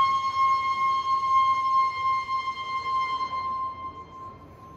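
A locomotive whistle blowing one long, steady, high note that fades out near the end.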